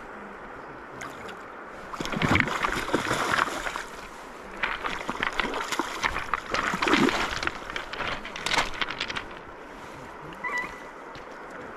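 Water splashing and sloshing in a shallow river, in two rough spells: one of about two seconds, then a longer one of about five seconds. A short high chirp comes near the end.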